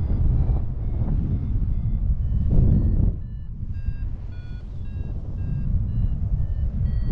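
A flight variometer's short electronic beeps, about two or three a second, jumping up and down in pitch: the beeping that signals climbing air. Under them is loud wind rushing on the microphone, which eases for a few seconds midway.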